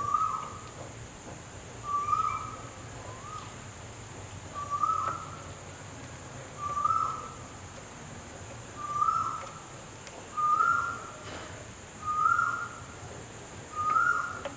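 A bird gives a short whistled call about every two seconds, eight times. Each note slides up a little, and the series creeps slightly higher in pitch as it goes on.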